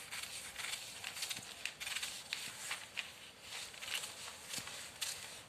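Scissors cutting through folded newspaper in a run of short snips, with the paper rustling and crinkling as it is turned along the curve.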